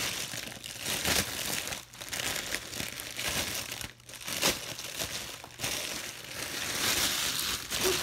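Packaging of a pop-it fidget toy crinkling and rustling as it is handled and opened, with brief pauses about two and four seconds in.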